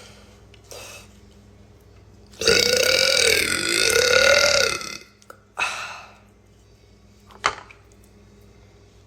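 A woman lets out one long, loud, deep burp lasting about two and a half seconds. A shorter breathy sound follows, then a sharp click.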